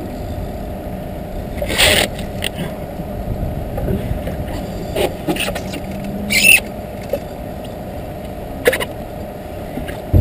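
A boat motor running steadily, with a few short scrapes and knocks about two, six and nine seconds in.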